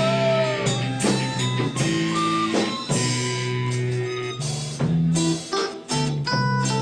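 Instrumental break in a song: guitar playing over a drum kit, with a held note from the previous line dying away in the first second.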